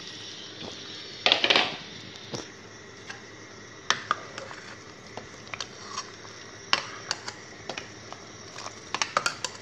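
Pork and eggs boiling in soy-sauce broth in a steel pot: a steady bubbling hiss with scattered sharp pops and clicks, and a short louder clatter about a second and a half in.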